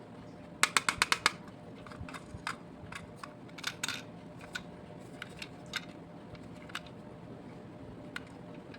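Small hard toy pieces being handled: a quick run of about six sharp clicks about half a second in, then scattered lighter clicks and taps.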